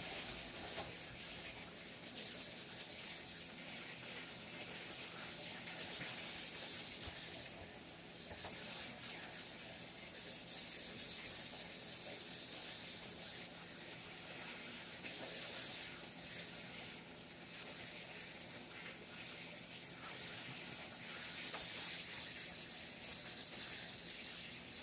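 Chicken party wings frying in oil in a skillet: a steady sizzling hiss that swells and eases every few seconds.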